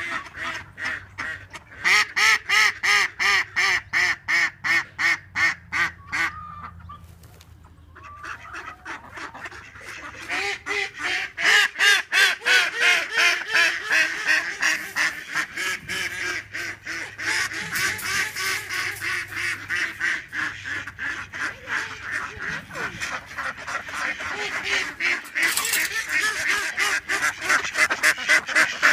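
A flock of domestic ducks quacking loudly, many rapid quacks overlapping in a continuous clamour. The calling drops off briefly about seven seconds in.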